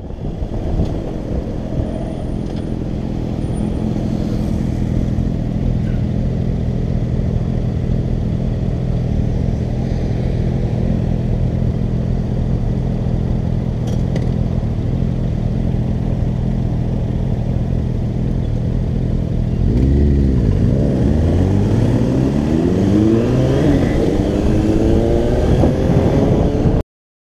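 Honda CBF125's single-cylinder 125 cc four-stroke engine idling steadily, then revving and pulling away about 20 seconds in, with other motorcycle engines rising in pitch alongside it. The sound cuts off suddenly near the end.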